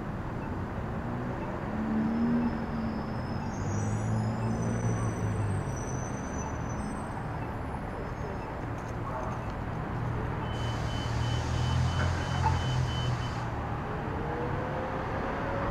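Street traffic: vehicle engines running and cars passing with a steady low rumble. About two-thirds of the way through comes a brief high hiss with a steady beeping over it.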